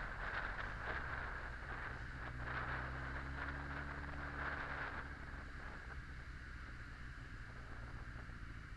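Honda X4's inline-four engine running at low revs as the motorcycle rolls slowly in city traffic, with a steady hiss on top that fades about five seconds in.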